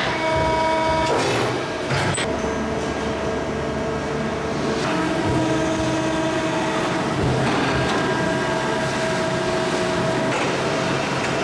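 Industrial machinery running steadily: a low hum with several steady whining tones that change pitch a few times, and a few light clicks.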